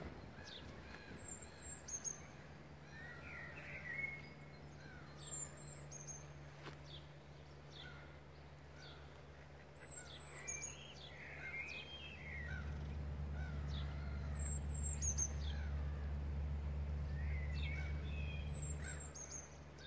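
Wild birds singing and chirping, with one short high song phrase repeated about every four seconds among scattered calls. A low rumble swells in about halfway through and is the loudest sound until it fades near the end.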